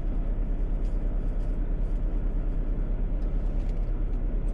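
Semi truck's diesel engine idling: a steady low throbbing hum, with a few faint light clicks over it.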